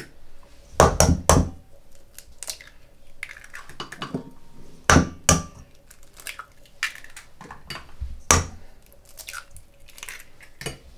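Eggs being cracked against the rim of a mixing bowl: a quick cluster of sharp knocks about a second in, two more around five seconds, another just past eight, with small clicks of shell between.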